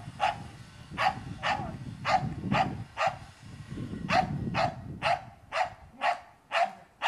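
Australian cattle dog (blue heeler) barking over and over, about two barks a second with a short break about halfway through, over a low rumble.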